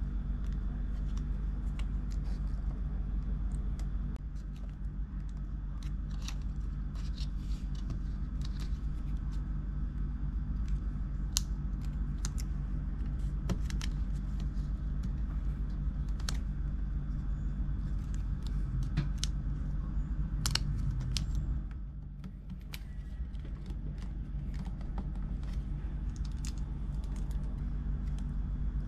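Scattered light clicks and taps of small tools and parts being handled during a laptop repair, over a steady low hum.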